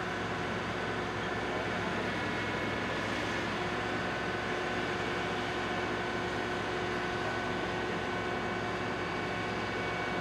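Asphalt paver's diesel engine running steadily while laying blacktop: a constant engine drone with a few steady whining tones over it.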